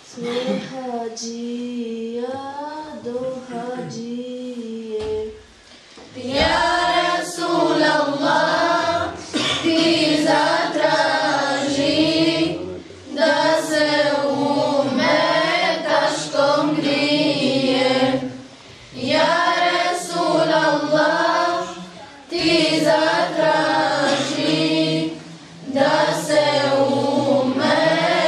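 Unaccompanied group singing of an ilahija, an Islamic devotional song, in young mostly female voices. A single voice sings the first few seconds, then the group comes in about six seconds in and sings phrase by phrase, with brief breaths between lines.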